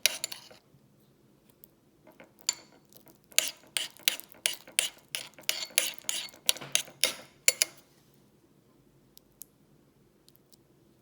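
Spoon clinking and scraping against a bowl as thickening shampoo-and-salt slime is stirred: a quick run of strokes, about three a second, that stops about three-quarters of the way through.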